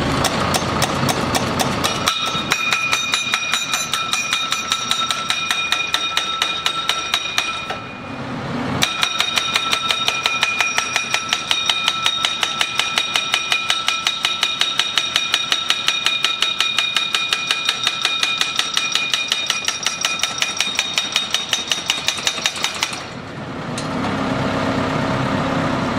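Pile driver hammering fast, at about four blows a second, each blow with a metallic ring. It runs in two spells with a short pause about eight seconds in, and the machine's engine runs on its own at the start and near the end.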